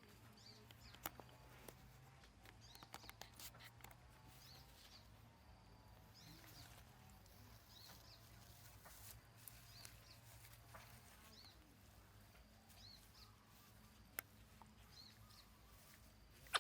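Faint, high-pitched animal chirps repeating about once a second, with a few sharp clicks.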